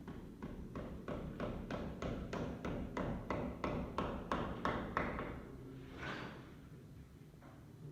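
Rhythmic tapping on wood, about three sharp strikes a second, getting louder as it goes. It stops about five seconds in, followed by one longer scraping sound.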